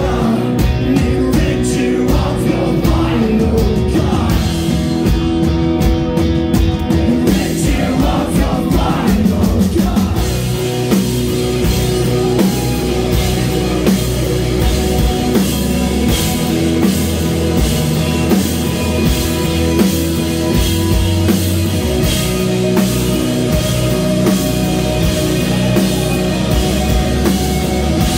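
Rock band playing live: electric guitars, bass guitar and drum kit, with a voice singing over them in roughly the first ten seconds before the band carries on without vocals.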